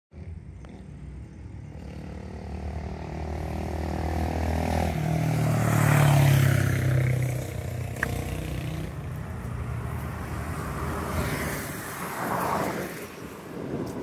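Road traffic passing close by: a vehicle's engine note builds and drops in pitch, loudest about six seconds in, followed by the whoosh of more cars passing.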